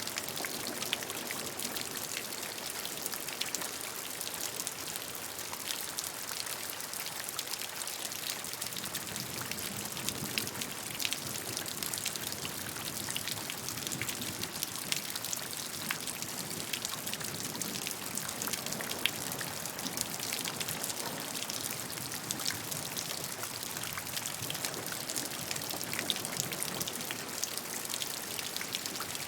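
Steady rain falling, with many separate drops pattering close by over an even hiss.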